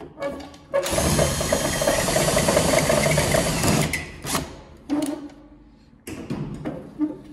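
Cordless drill boring out a rivet in a plastic weatherproof socket outlet, running steadily for about three seconds. A few short knocks and rattles follow.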